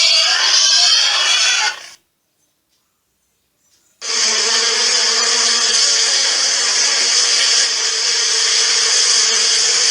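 A pig grunting and squealing for about two seconds, then a short silence, then a steady, even buzz with a low hum underneath that runs until the end.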